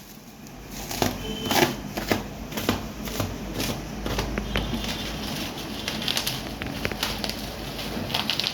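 Packaging being handled and opened: irregular rustling with sharp clicks and taps, the loudest cluster between about one and three seconds in.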